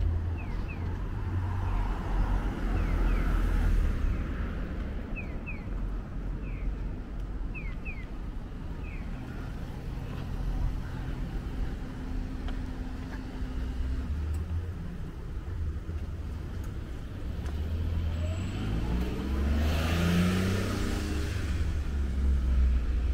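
City street traffic: a steady low rumble of road noise, with a motor vehicle accelerating past about nineteen seconds in, its engine pitch rising, the loudest part. A few short high chirps in the first half.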